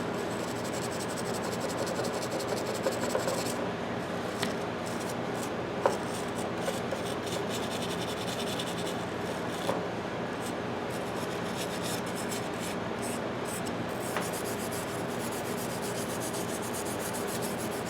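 Hand-held brass wire brush scrubbing over a steel pipe wrench: a steady scratchy rubbing with a few small clicks, brushing the metal bright.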